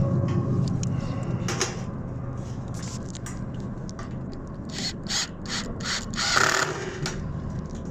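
Hand-tool work on sheet-metal roofing: a run of short clicks, snips and scrapes, with one longer scrape about six and a half seconds in. A low rumble fades out at the start.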